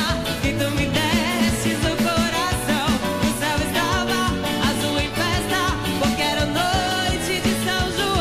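Live forró band music: a steady dance beat under a wavering melody line.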